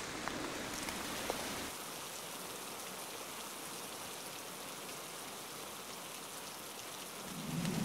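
Steady rain falling, with a few sharper drop ticks in the first couple of seconds.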